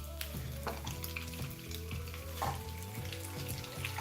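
Food frying in hot oil in a pan, a steady sizzle with a few short scrapes and knocks of stirring. Soft background music with held low notes plays underneath.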